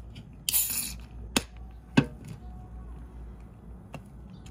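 Aluminium beer can opened by its ring tab: a crack and a short hiss of escaping gas, then a sharp click and, about half a second later, a louder knock, with a faint tick near the end.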